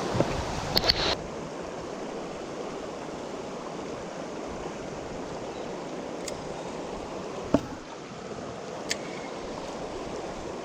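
Fast-flowing river current rushing steadily, with a few short sharp clicks, the loudest about seven and a half seconds in.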